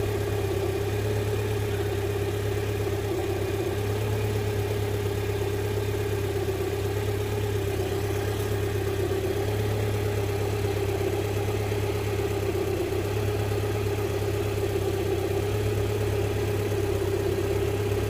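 2005 Land Rover Freelander's 1.8 K-series four-cylinder petrol engine idling with a steady hum. The idle runs lumpy, a fault the technician is tracing to the camshaft position sensor (code P0340).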